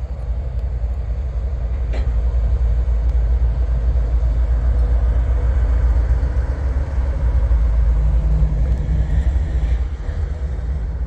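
Diesel locomotives running with a loud, steady, deep rumble.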